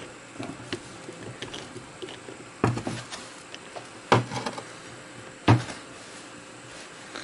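Metal clicks and knocks from a chuck key turning the scroll of a small three-jaw lathe chuck. There are light ticks throughout and three sharper knocks, roughly a second and a half apart.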